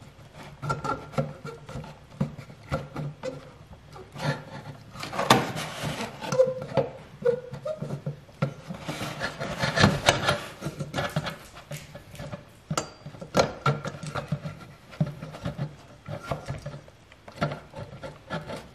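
Hands working the oiled piston and rings into the cylinder of a small Honda four-stroke engine without a ring compressor, turning the crankcase assembly: irregular metal clicks, knocks and rubbing, loudest in two spells a few seconds apart.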